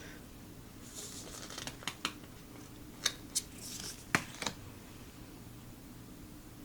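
Tarot cards being handled and turned over: soft slides of card stock and a few light, sharp clicks over a few seconds, stopping a little after the middle.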